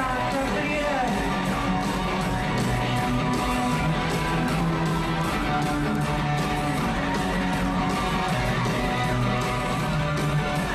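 Rock band playing live with electric guitars over a steady beat, heard from the crowd in a large arena.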